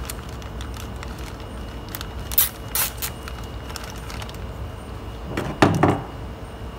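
Plastic bag of bundled spare wires crinkling as it is handled, with a couple of short rustles about two and a half seconds in and a louder rustle near the end, over a faint steady hum.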